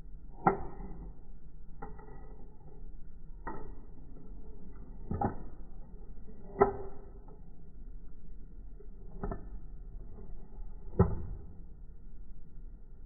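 Seven sharp metallic clicks and knocks, spaced irregularly, each with a short ring, as the parts of a doorknob set are handled and fitted into a door. The loudest comes a little past halfway.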